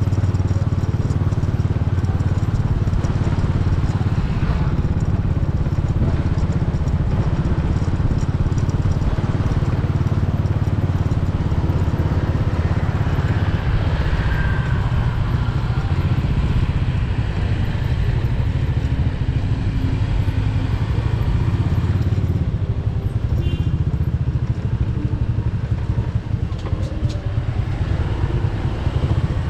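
Motorcycle engine running steadily on the move, with the low rumble of street traffic around it.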